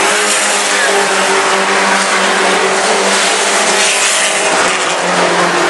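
Engines of a pack of mini trucks racing on a dirt oval, running hard at full throttle in a loud, steady blend.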